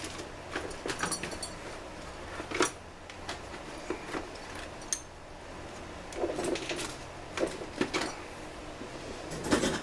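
Rummaging through small parts: irregular clicks, clinks and knocks of small hard objects being picked up, moved and set down, with the loudest knocks about two and a half seconds in and near the end.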